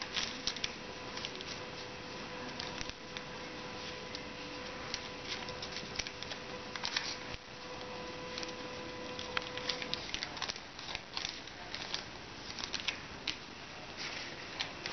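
Paper being folded and creased by hand into an origami heart: irregular rustling with short crackles and taps as the fingers press the folds flat.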